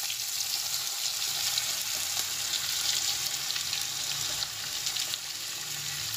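Sliced ivy gourd (kovakkai) sizzling steadily in hot oil in a kadai just after being tipped in, with light crackling throughout.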